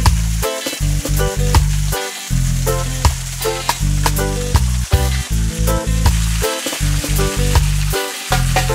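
Background music with a steady beat and a bass line that drops out and comes back, over a steady high hiss.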